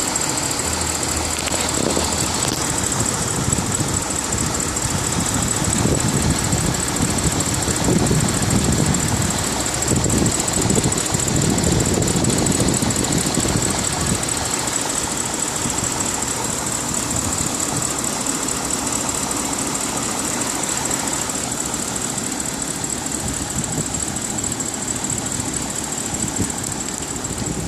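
BMW 550i's V8 engine idling steadily at normal operating temperature, with a continuous mechanical noise that the owner wonders may point to a VANOS or lifter problem. A thin steady high whine runs over it, and the engine gets a little louder for a few seconds in the middle.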